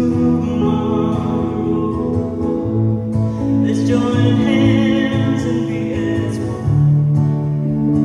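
Live folk song: a woman singing while strumming an acoustic guitar, with keyboard accompaniment holding sustained notes underneath.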